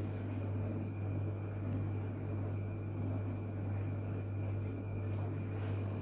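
A steady low hum at an even level, with a couple of faint clicks near the end.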